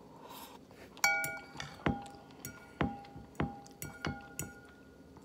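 Metal fork clinking against a ceramic bowl while stirring and picking up noodles: about nine light, irregular strikes starting about a second in, each ringing briefly.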